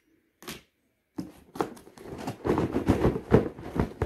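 A brief rustle, then from about a second in a dense run of knocks and scraping: loose phones shifting and rattling against each other inside a cardboard shipping box as the box is tilted and handled.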